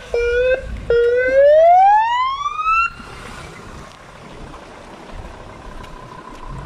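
Police car siren sounded in short bursts: a brief blip of steady pitch, then one wail rising steeply in pitch for about two seconds that cuts off suddenly about three seconds in, leaving faint traffic noise.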